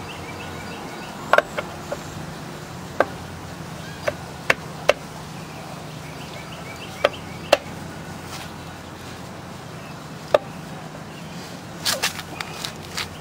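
Scattered sharp clicks and knocks of a metal engine side cover being pressed and worked onto the crankcase of a Kawasaki KLF185 ATV, with a quick run of knocks near the end.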